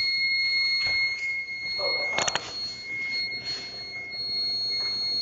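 Steady, high-pitched electronic tone of a house alarm sounding without a break, with a few short knocks around it.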